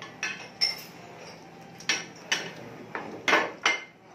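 Chopsticks and utensils clinking against ceramic plates and bowls as food is served at the table: a string of sharp clinks, about six in four seconds, the loudest near the end.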